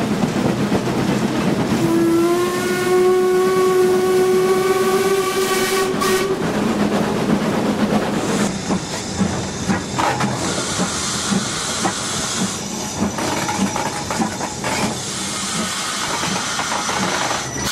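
BR Standard Class 4 4-6-0 steam locomotive running, heard from the footplate. Its whistle sounds one steady note for about four seconds, over the running and rail noise. About halfway through, a high steam hiss joins in.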